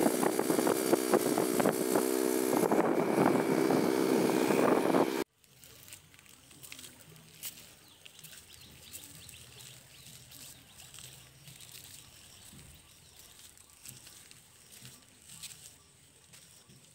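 A loud, steady engine drone mixed with rushing noise, cut off abruptly about five seconds in; after that, quiet outdoor ambience with faint scattered taps.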